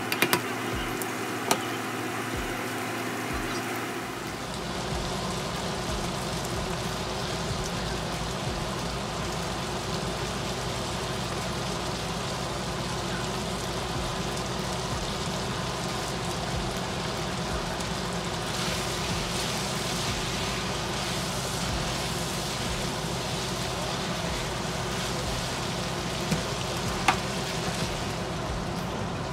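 Shrimp and spaghetti sizzling in oil in a skillet, with a few sharp clicks of tongs against the pan near the start and again near the end, over a steady low hum.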